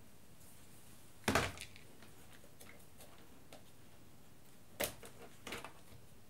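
Handling noise as a circuit board is freed and lifted out of a Behringer X32 mixing console's opened top panel: a knock about a second in, then a sharp click and a few lighter clicks near the end.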